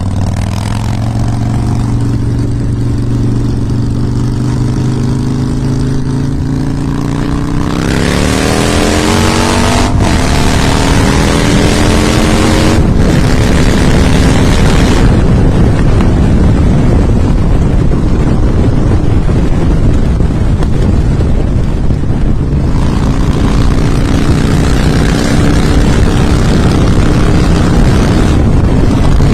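Harley-Davidson V-twin motorcycle engine running at a steady low note. From about eight seconds in it climbs in pitch as it speeds up, with two brief dips, and a loud rushing noise joins it. It then holds a steady note.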